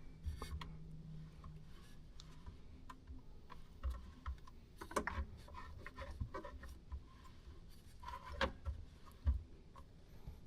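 Faint, irregular small clicks and a few light knocks of handling noise, like a phone being shifted to a new view.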